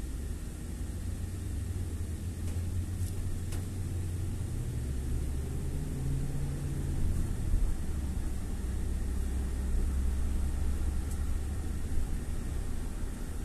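Car driving: a steady low engine and road rumble that drops in pitch about four and a half seconds in.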